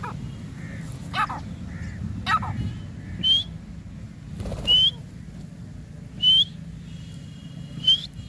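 Grey francolin calling: two rougher notes early, then four short, sharp, rising whistled calls about one and a half seconds apart. A low steady rumble runs underneath.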